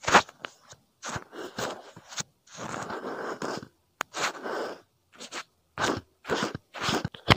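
ASMR foley imitating a shampoo scrub: a run of crunchy scratching and rubbing strokes, mostly short, with one longer rub of about a second near the middle.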